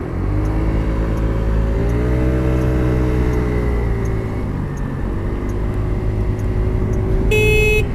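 Peugeot scooter's small engine running, its pitch rising about two seconds in and falling away, then climbing again after a dip about five seconds in. Near the end a horn sounds once, for about half a second.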